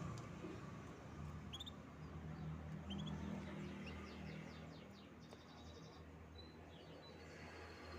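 Canary singing faintly: a few short chirps, then a rapid trill about halfway through and a long held high note near the end, over a steady low hum.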